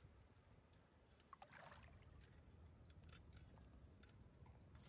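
Near silence: faint water sloshing with a few small ticks as a stick probes a flooded mud-crab burrow in a mangrove bank.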